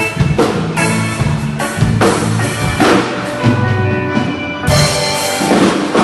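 Loud band music: a drum kit keeping a steady beat over a bass line, with the cymbals dropping out briefly and coming back in with a crash about three-quarters of the way through.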